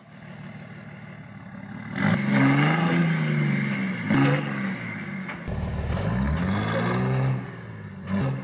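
M923 military truck's diesel engine revving up and down under load while straining to pull out a tree stump. It is quieter at first and grows louder about two seconds in, with a few short clicks along the way.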